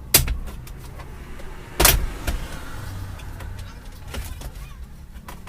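Plastic dashboard panel being pulled free, its clips letting go: two sharp snaps about a second and a half apart, with lighter plastic clicks and rattles between them.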